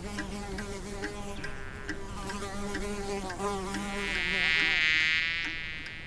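Cartoon bee buzzing: a wavering drone that swells into a louder, higher-pitched buzz about four seconds in, then fades away. A steady ticking, about two ticks a second, runs underneath.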